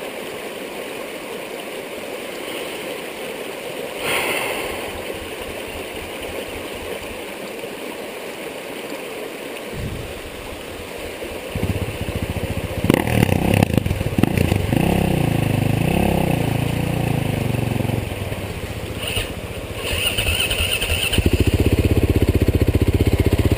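Single-cylinder four-stroke dirt bike engine running at low revs over a steady rush of floodwater. From about twelve seconds in it is revved hard, rising and falling in pitch several times, then runs steadily and louder near the end.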